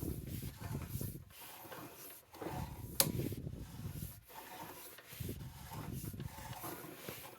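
Sewer inspection camera and its push cable scraping and rubbing irregularly as they are worked along a clay tile sewer pipe, with a sharp click about three seconds in.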